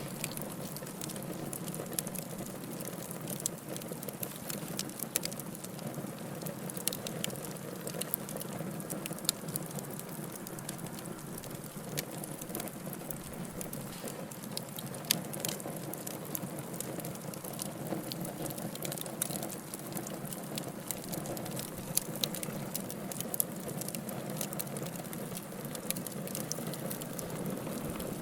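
Campfire burning, a steady low rush of flames with constant crackling and scattered sharper pops of burning wood.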